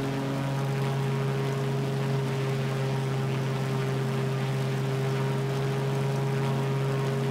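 Pitts Special biplane's piston engine and propeller running steadily in flight, a constant hum that holds one even pitch.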